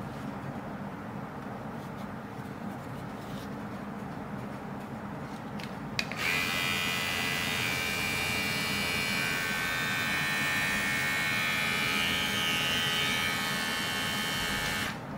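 Xiaomi Enchen cordless electric hair clipper clicked on about six seconds in, running with a steady electric buzz, then switched off shortly before the end.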